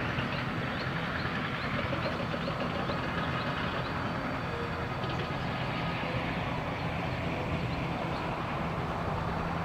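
ATR 72 turboprop engines running at taxi power as the aircraft rolls slowly onto the runway, heard from a distance: a steady drone with a low hum under it.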